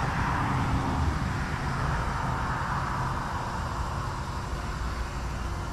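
Steady outdoor background noise: a low rumble under a hiss, with no distinct events.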